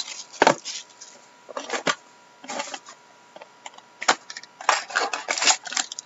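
Hockey card pack being torn open and its cards handled: plastic wrapper crinkling and cards rustling and clicking against each other in short irregular bursts, busiest in the second half.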